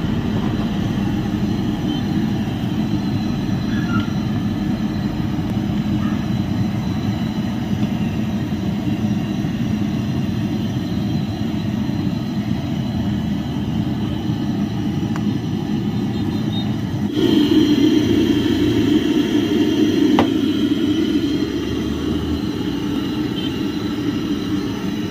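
Steady low rumble from a street-food cart: the gas burner under a large kadai of samosas deep-frying in oil, with street noise around it. It gets louder about 17 seconds in.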